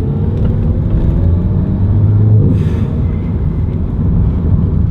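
Seat Leon Cupra driving, its engine and road noise a steady low rumble. The engine note rises slowly during the first two and a half seconds, then eases off.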